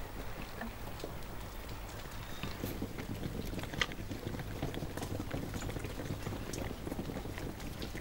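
Chickens pecking scattered grain off hard ground: a dense patter of quick small taps, with a few sharper clicks.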